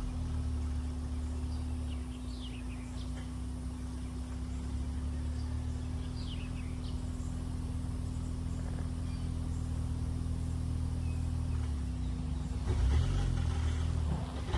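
A manual-swapped Honda Accord's engine idling steadily with a constant low hum, its note shifting briefly near the end. A few short bird chirps come over it.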